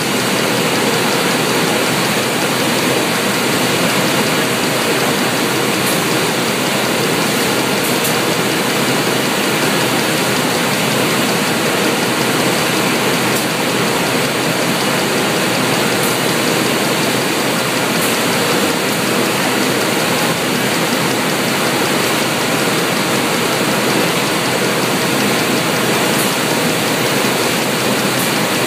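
Steady factory-floor machinery noise from a running packaging line with roller conveyors: an even, unbroken hiss and rumble, with a few faint high ticks.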